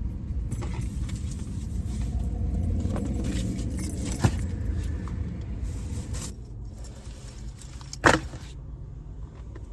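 Keys jangling and small rattles over the low, steady rumble of a car, with a sharp click about halfway through and a louder knock near the end.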